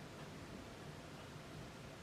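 Faint steady hiss with a low hum underneath: room tone.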